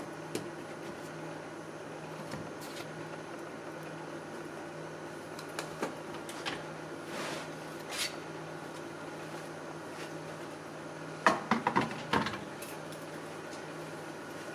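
Steady low electrical hum with scattered light clicks and taps of small hard parts being handled, then a quick cluster of sharp clicks and clatter about eleven seconds in.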